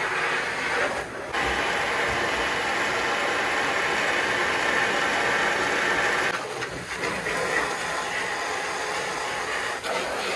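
Water gushing steadily from the open bottom valve of a 275-gallon IBC tote and splashing onto sandy ground as the tote is rinsed out with a hose. The rush changes character abruptly about a second in and again past the middle.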